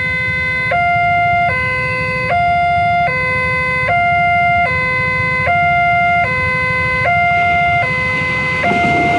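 Two-tone hi-lo emergency siren, alternating steadily between a lower and a higher pitch, each held just under a second, over a low rumble.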